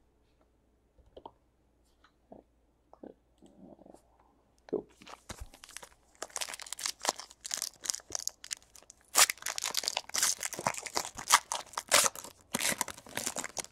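A foil Panini Contenders basketball card pack torn open by hand, its wrapper crinkling. A few faint taps come first, then a dense run of crackling tears from about five seconds in, loudest in the second half.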